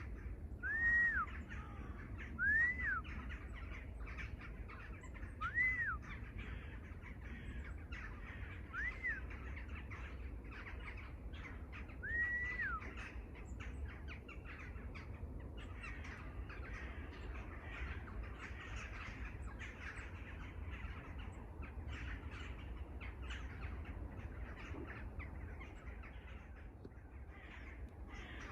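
Wild birds calling: five loud, clear calls in the first half, each rising and then falling, a few seconds apart, over a dense chorus of many birds chattering that fills the second half.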